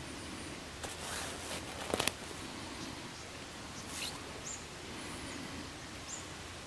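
Quiet outdoor ambience with faint high bird chirps, and a few soft rustles and clicks close by, the loudest about two seconds in.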